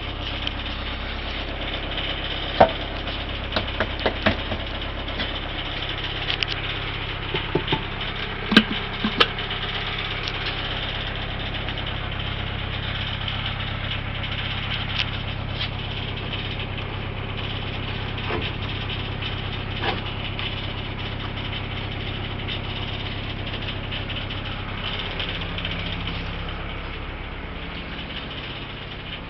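Narrowboat engine running steadily at idle, with scattered sharp clicks and knocks in the first third; its note shifts near the end.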